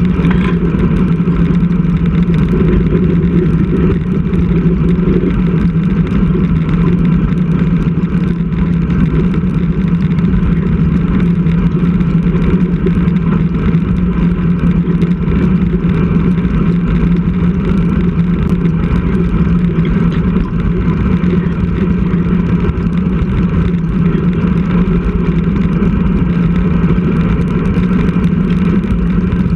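Steady wind and road rumble picked up by a bicycle-mounted action camera while riding, a constant low drone with no let-up.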